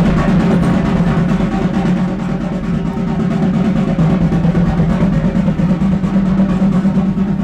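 A drum roll: fast, even drum strokes held in one long unbroken roll at a steady loudness.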